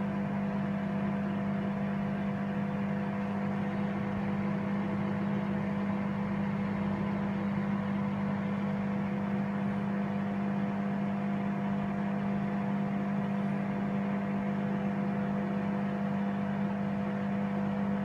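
Sharp microwave oven running on full power, a steady even hum from the magnetron and turntable motor.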